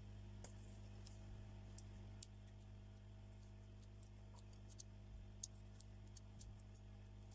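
Near silence: a steady low electrical hum with a few faint, scattered clicks.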